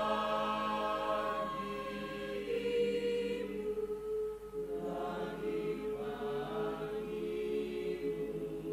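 Choir singing long sustained notes. One voice part holds a steady note from about a third of the way in, while the other parts swell in and out around it.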